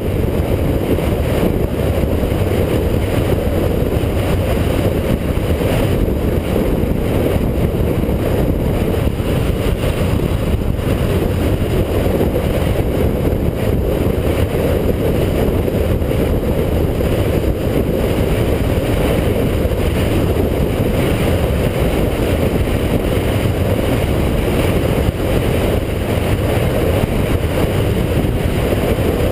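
Motorcycle riding at steady highway speed: a constant rush of wind buffeting the microphone over the low engine and road noise.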